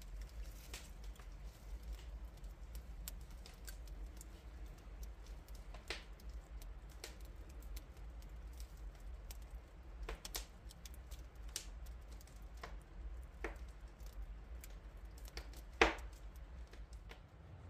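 Wood embers crackling with scattered sharp pops over a low steady rumble, one louder pop near the end.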